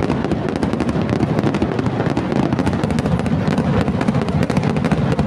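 Aerial fireworks display: bursting shells giving a dense, unbroken run of bangs and crackling.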